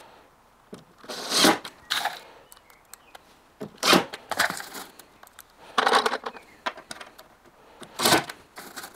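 Cordless drill driver running in about five short bursts, driving small screws through a timber corner block into the underside of a worktop.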